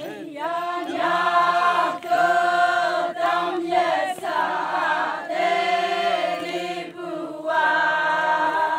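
A group of voices singing a Konyak Naga folk song, holding long notes in phrases with short breaks between them.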